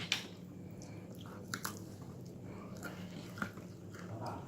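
Someone biting and chewing martabak close to the microphone: scattered small crunches and mouth clicks over a steady low hum.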